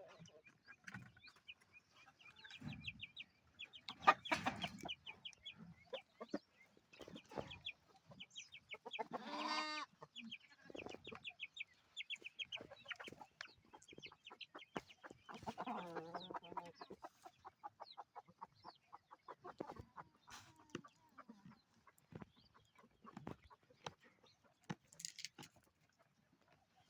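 A flock of chickens clucking and calling on and off, with a few louder squawks about four seconds in, near ten seconds and around sixteen seconds.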